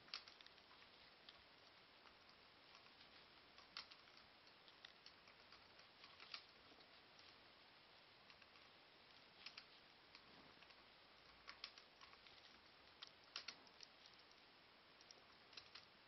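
Faint, irregular clicking and tapping of laptop keys being pressed, single keystrokes and short clusters with pauses of a second or more between them.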